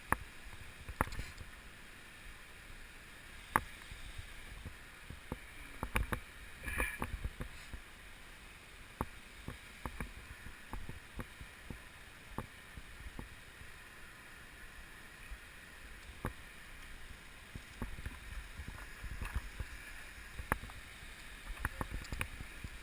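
Steady rush of waterfall water, with scattered sharp clicks and knocks of climbing gear and low rumbles of handling or wind on the microphone.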